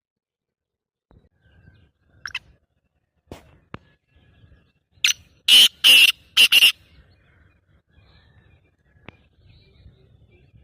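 Black francolin calling: a short note, then about halfway through a loud call of four harsh, rasping notes in quick succession.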